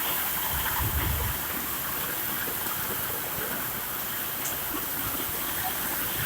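Heavy rain pouring down in a steady, dense hiss, with a brief low rumble about a second in.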